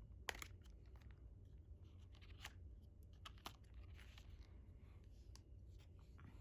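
Faint paper and cardboard handling: a printed album booklet and its card inserts being turned over and shuffled, with soft rustles and a few sharp paper snaps spread through.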